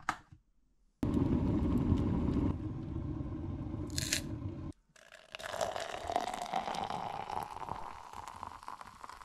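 Glass electric kettle boiling with a steady rushing rumble, a short sharp scrape about four seconds in, then hot water pouring from the kettle into a cup.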